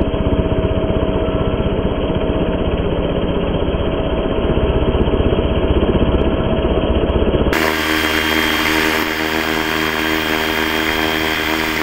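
Electric RC helicopter with a Cobra-style 3D-printed fuselage running on the ground: motor and rotor running steadily. About seven and a half seconds in the sound changes abruptly to a cleaner, steady whine.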